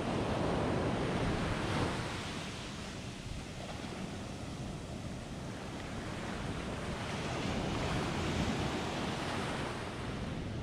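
Surf breaking and washing up a sandy beach, swelling louder twice, at the start and again about seven seconds in.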